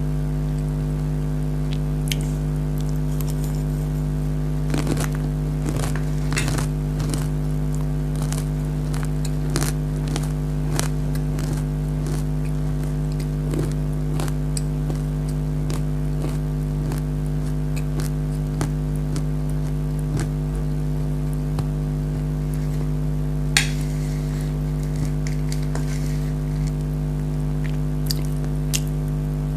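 Crunchy nimko being chewed close to the microphone: scattered crisp crunches and crackles, with one louder crunch about two-thirds of the way in, over a loud steady hum.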